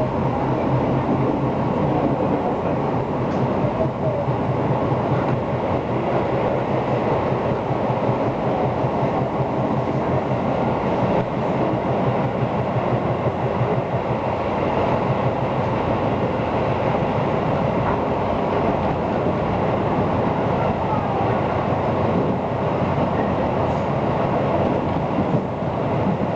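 Tobu Urban Park Line electric commuter train running between stations, heard from inside the car: a steady rumble of wheels on rail and running gear, with a low hum in the first several seconds that then fades.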